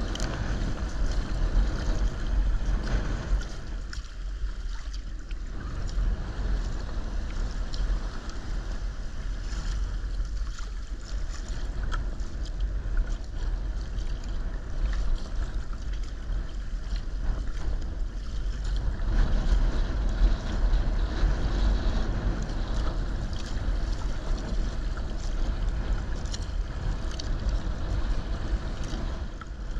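Wind buffeting the microphone, over water splashing and lapping against a sea kayak's hull as it is paddled through choppy sea.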